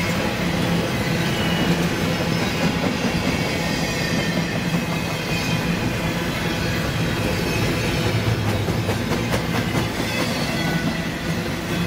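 BNSF double-stack intermodal freight train rolling steadily past, its wheels running over the rails with faint high squealing tones. A quick run of clicks from the wheels crossing the rail joints comes near the end.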